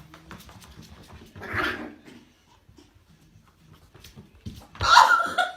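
A dog vocalizing in a few short bursts, the loudest one near the end with a held high-pitched tone.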